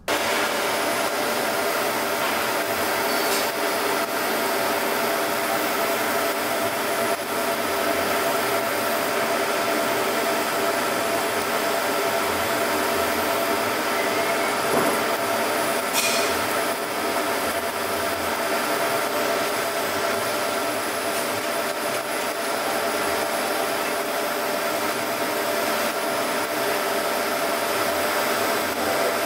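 Laser etching machine running steadily as it marks a logo into a metal exhaust heat shield: an even whirring hiss with several steady tones. There is a short click about 16 seconds in.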